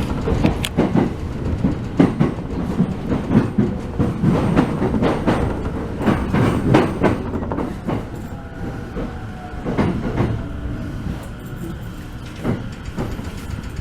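Electric commuter train running on rails, its wheels clattering over the rail joints in a dense string of knocks that thin out in the second half, when a faint whine sliding in pitch comes through.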